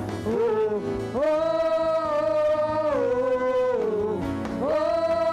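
Live worship music: a singer holds long, wordless notes that slide up and down between pitches, over a steady band accompaniment.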